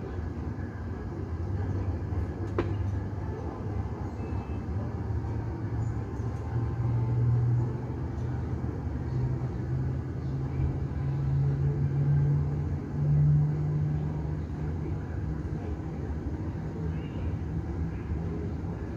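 A low, steady engine rumble from an airliner's pushback on the apron, muffled as if heard through the terminal glass. Its humming tone climbs slowly in pitch over several seconds, then holds steady.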